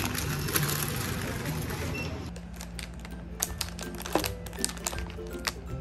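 Plastic snack bags rustle for about the first two seconds. After that come soft background music with a steady low note and the sharp crinkles and taps of a plastic cookie wrapper being handled.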